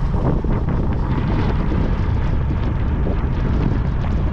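Wind buffeting the microphone of a moving motorcycle tricycle, a steady low rumble over the motorcycle's running engine.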